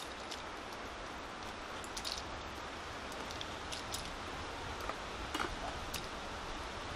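Steady outdoor background hiss with scattered light clicks and ticks, a couple of them sharper about two seconds in and near the end.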